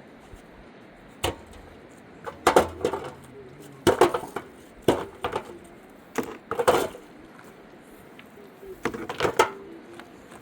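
Irregular knocks and clattering, in several clusters of sharp strikes a second or so apart.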